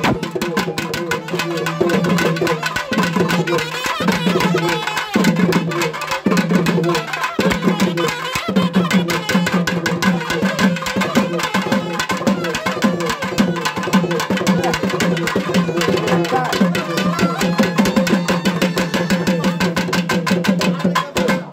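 Traditional festival music: fast, dense drumming over a sustained low pitched melody or drone.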